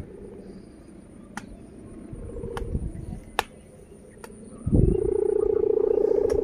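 Sowangan kite hummer with a thick 0.20 mm mica reed, sounding faintly and unsteadily at first, then about three-quarters of the way in starting up as a loud, steady buzzing drone as the big kite catches the wind.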